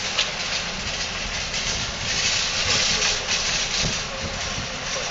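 Steady rushing outdoor noise with an uneven low rumble, without distinct events.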